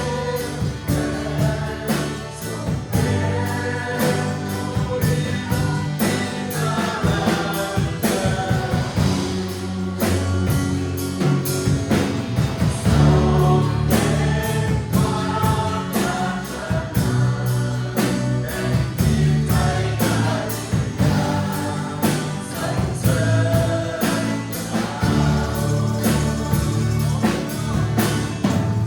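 A worship band and congregation singing a Christian worship song together, with voices over a steady drum beat and bass.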